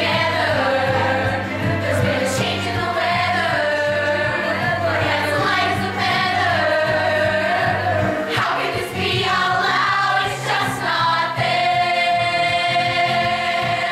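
Musical theatre ensemble singing a show number together in chorus, over instrumental accompaniment.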